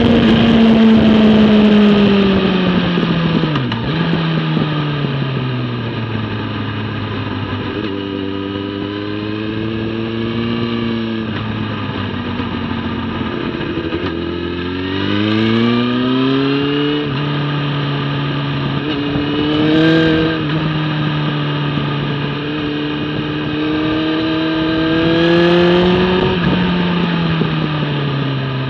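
Motorcycle engine at track speed heard from on board, its pitch falling as the bike slows for corners and rising again under acceleration, several times over.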